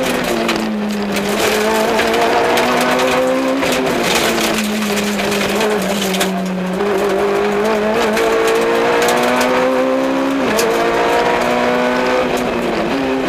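Peugeot 106 XSI rally car's four-cylinder engine, heard from inside the cabin, being driven hard at speed: the engine note climbs in pitch under throttle and drops back several times, at gear changes or lifts for corners, with short knocks from the car over the road.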